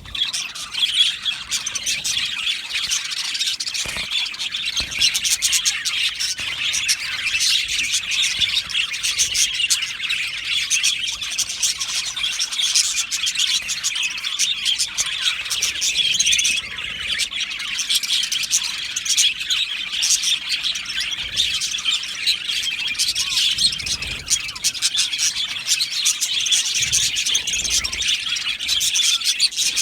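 A flock of budgerigars chattering and chirping together in a continuous, dense warble of rapid high calls.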